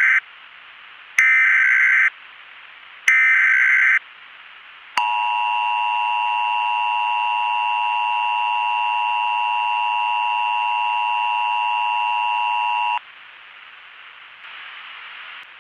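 Emergency Alert System broadcast tones: three loud data-header bursts of about a second each, then the steady two-tone attention signal held for about eight seconds before it cuts off, leaving a faint hiss. These tones announce an emergency alert message.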